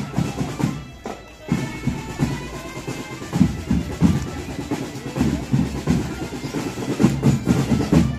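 A marching drum band playing: drums beating a steady march under a held melody, with a brief drop about a second in.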